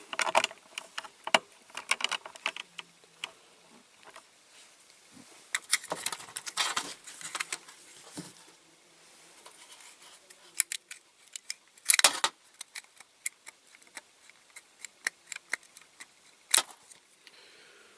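Small metal and plastic parts of a diecast toy car being handled and set down on a work surface: scattered sharp clicks and ticks with a few short rattles.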